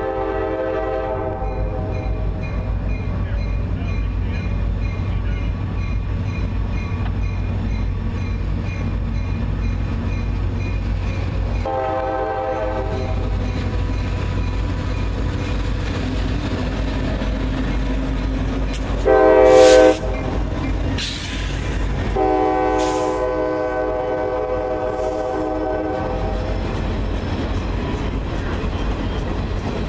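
Nathan K5LA five-chime air horn on a pair of EMD SD40-2 diesel locomotives sounding long, long, short, long: the grade-crossing signal. The short blast is the loudest as the locomotives draw close. A steady low rumble of the diesels runs beneath, and the cars roll past near the end.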